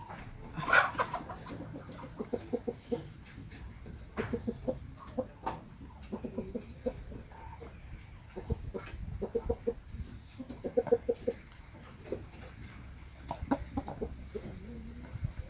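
Bangkok gamecock making short, low clucking calls in irregular clusters. The rooster has a respiratory cold with snoring breathing (ngorok).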